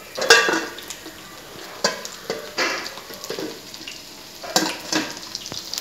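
Marinated fish slices shallow-frying in oil in a pan, a steady sizzle, with several sharp clinks and scrapes of a metal spatula against the cookware at irregular intervals, the loudest right at the start.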